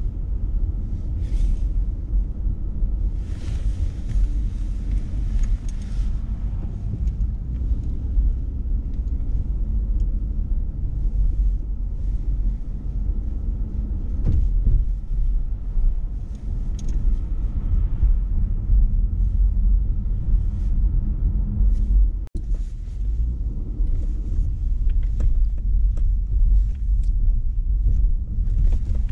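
Steady low rumble of a moving car heard from inside the cabin: engine, tyre and road noise. A brief hiss rises about three seconds in and fades out by about six seconds, and the sound drops out for an instant a little after twenty-two seconds.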